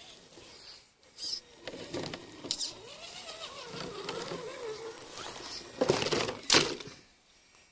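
Electric motor of a radio-controlled crawler truck whining, its pitch rising and falling with the throttle. A few short sharp splashes or knocks come in between, the loudest pair about six seconds in.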